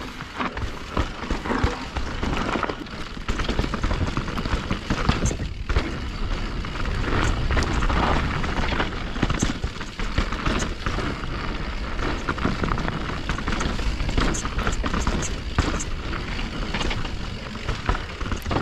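Wind buffeting the microphone during a fast run down a snowy slope: a loud, rumbling rush that swells and fades, with the hiss of edges sliding on snow.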